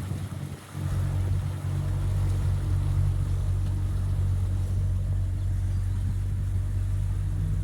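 Motor engine running steadily, a low even drone, with a brief dip in loudness under a second in.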